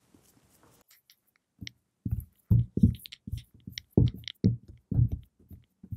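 Hands patting and pressing a soft, sticky potato dough into a ball on a floured wooden board. From about a second and a half in there is a run of soft, dull pats, three or four a second.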